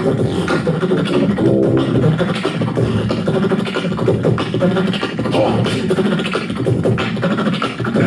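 Two people beatboxing together, one into a handheld microphone: a fast unbroken run of mouth-made drum sounds with gliding vocal tones mixed in.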